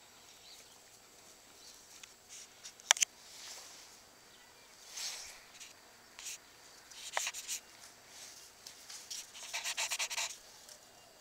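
Bull terrier puppy and adult bull terrier playing on a tile floor: soft snuffling and scuffling noises with a few sharp clicks, and a quick run of short rasping bursts near the end. No barks or yelps.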